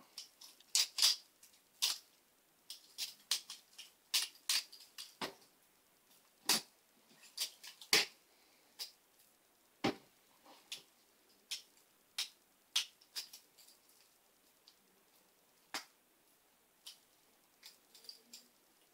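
Balisong (butterfly knife) being flipped: irregular sharp clicks and clacks of the handles swinging and striking, one or two a second, with short pauses and fewer clicks near the end.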